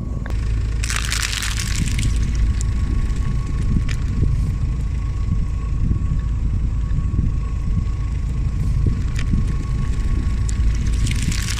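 Car engine and tyre rumbling low and steady over water-bead balls and a crushed plastic tub. A few sharp clicks break through, with two short bursts of high hiss, about a second in and near the end.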